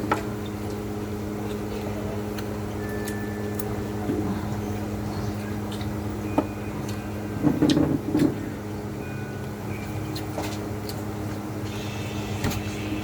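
Mouth and utensil sounds of eating, small clicks here and there and a brief louder bout of chewing about seven and a half seconds in, over a steady motor-like hum.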